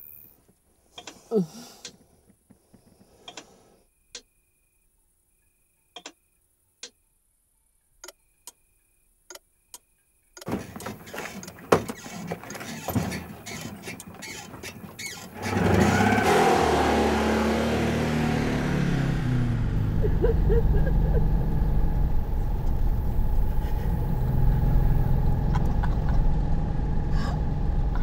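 A few scattered clicks in near silence, then knocking and rustling, then a car engine starting about halfway through, its pitch stepping briefly before it settles into a steady run.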